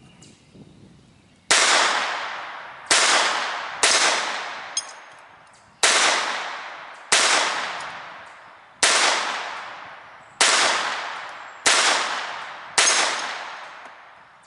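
Ruger LCP II .22 LR pocket pistol fired nine times at an uneven pace of one to two seconds between shots, each a sharp crack with a fading echo. Between two shots there is a short metallic ping, a hit on a steel target.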